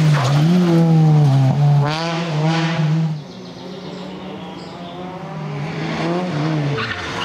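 Rally car engines at full attack: a Peugeot 206 rally car revving hard as it passes, its pitch rising and falling several times, then cutting off about three seconds in. After a quieter stretch a Peugeot 205 rally car's engine builds as it approaches, with a couple more rises and drops in revs near the end.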